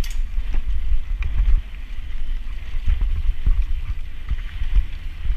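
Wind buffeting a handlebar-mounted action camera's microphone as a mountain bike rides fast down a loose dirt trail, with tyre hiss on the dirt and repeated short knocks and rattles from the bike over bumps.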